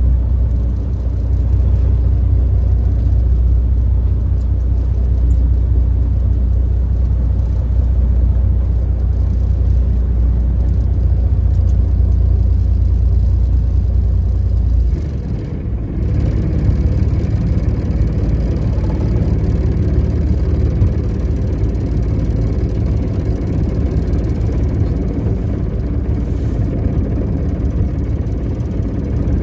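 A fishing boat's engine running steadily with a deep, low hum. About halfway through, the deepest hum drops away and a rougher, noisier engine sound carries on.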